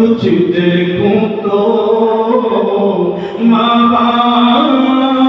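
Unaccompanied voice singing a naat (Urdu devotional poem) into a microphone, with long held notes that slide slowly up and down in pitch.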